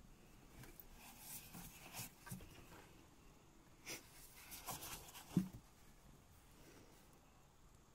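Handling of a 4-litre plastic engine oil jug in gloved hands: scattered light rustles and taps as it is lifted and turned, with one louder low knock about five and a half seconds in.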